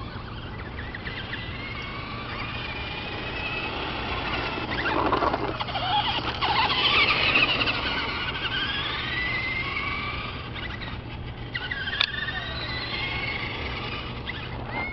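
Traxxas Stampede RC monster truck's electric motor whining, its pitch rising and falling as the truck speeds up and slows, loudest about halfway through. A single sharp knock comes near the end.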